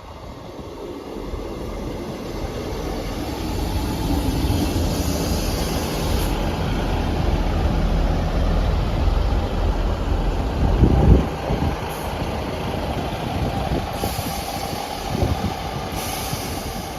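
ScotRail Class 158 diesel multiple unit at the platform, its underfloor diesel engines rumbling steadily and swelling louder about eleven seconds in. Hisses of air from the brake system come and go.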